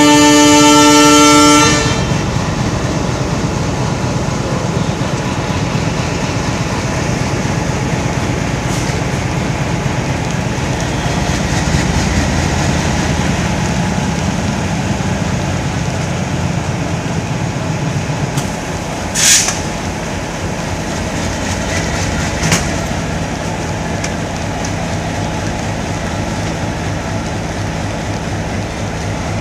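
WDM diesel locomotive's multi-tone horn ending a long blast just under two seconds in, then the engine chugging steadily under load as it pulls the train away. A brief hiss sounds about twenty seconds in.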